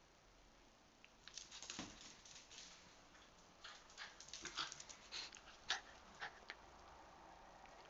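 Jack Russell terrier's claws clicking and scrabbling on a tiled floor as it runs to fetch and carry back a rubber bone: a scatter of short sharp clicks and scrapes, with a dull thump about two seconds in.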